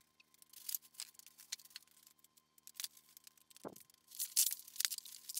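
Plastic wrapping crinkling and rustling in scattered bursts as hands grab the plastic-wrapped exercise bike in its styrofoam packing, busiest and loudest about four seconds in.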